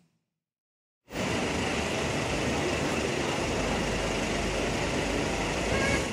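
About a second of dead silence, then steady city street traffic noise with no single engine standing out.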